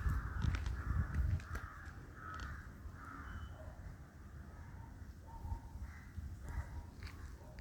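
Crows cawing: a quick run of harsh calls in the first three seconds, then a few more scattered calls, over a low rumble.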